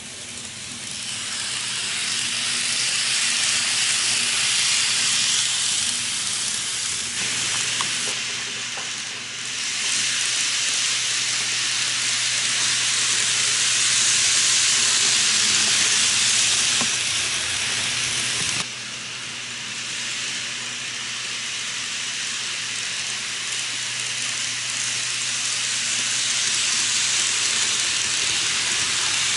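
N gauge model trains running on the track: a steady hiss-like rush of small wheels rolling on the rails, with a low steady hum beneath. The loudness shifts abruptly twice, about a quarter of the way in and again past halfway.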